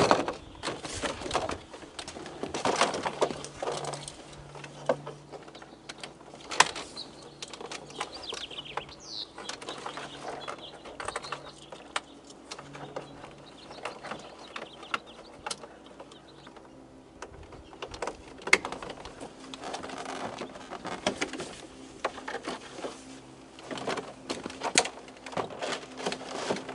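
Scattered clicks, knocks and rustling of hands working plastic wiring connectors and a truck's interior door panel, with two sharper knocks, one about six seconds in and one past the middle.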